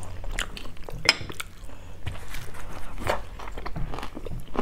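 Scattered light clicks and taps of chopsticks and a fork against ceramic plates and bowls at a meal, with a brief clink about a second in.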